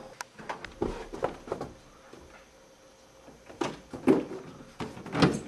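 Scattered clicks and knocks, then several heavier thumps in the second half, as a door is handled.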